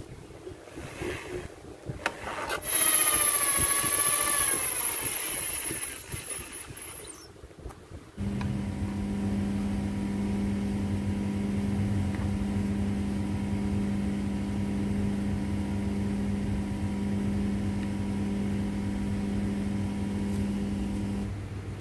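Electric drill running and boring into a small part clamped in a drill vise, its motor whine wavering and dipping in pitch under load for several seconds. After an abrupt change about eight seconds in, a steady low hum with several overtones carries on almost to the end.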